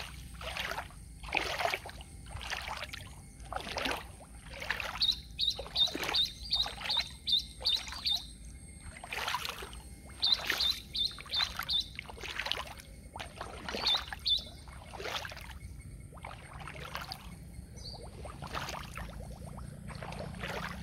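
A bird calling in three runs of quick, evenly spaced chirps: a long run, a shorter one, then two notes. Under it runs a steady rhythm of swishing strokes about once a second.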